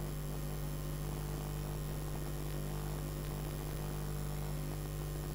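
Steady electrical mains hum over a constant background hiss.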